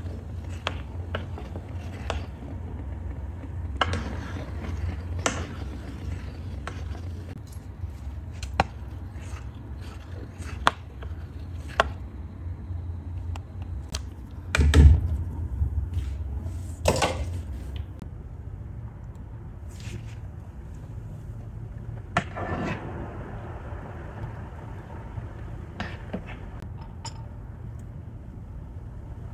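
Metal ladle stirring and lifting thick custard in an aluminium pot, with scattered knocks and scrapes of the ladle against the pot, the loudest about halfway through. A low steady hum sits underneath and stops about two-thirds of the way through.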